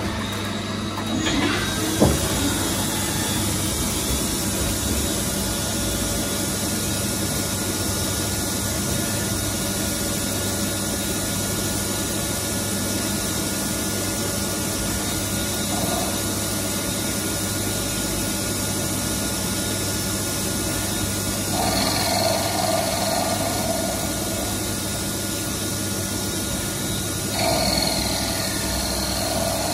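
CNC lathe turning steel, running with a steady machine whir and hiss. There is a sharp knock about two seconds in, and a higher steady tone comes in twice in the second half as the cut goes on.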